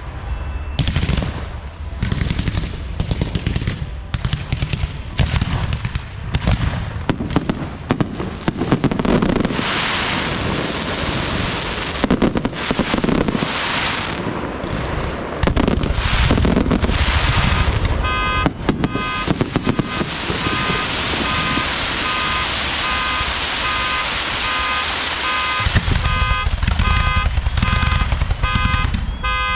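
Aerial fireworks bursting and crackling in rapid, irregular volleys. About two-thirds of the way in, a car alarm starts up, sounding a repeating pulsed tone over the continuing bangs.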